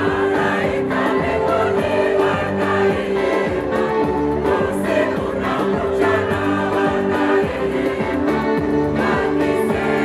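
Large choir singing a hymn together with instrumental backing, continuous and full-voiced.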